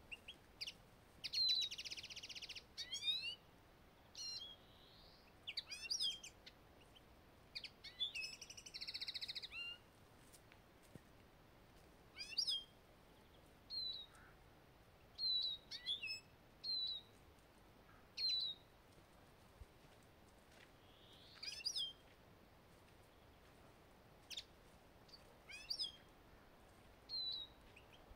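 Small finches calling: short high chirps repeated every second or two, with two buzzy twittering bursts, one shortly after the start and one about eight seconds in.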